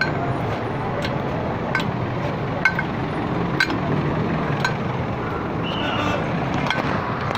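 Steady rumble of street traffic, with a light sharp tap about once a second.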